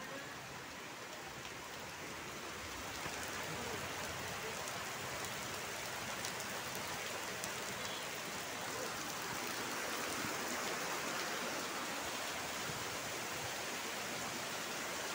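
Heavy rain pouring down onto a wet dirt yard, a steady dense hiss that grows a little louder about three seconds in.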